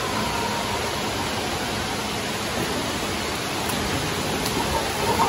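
Steady rushing noise of water in an indoor pool hall, getting louder just before the end.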